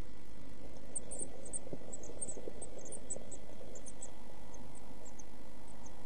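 Steady hiss and hum from the nest box camera's microphone. Over it, between about one and five seconds, come many short, faint, very high peeps from the one-week-old blue tit chicks in the nest.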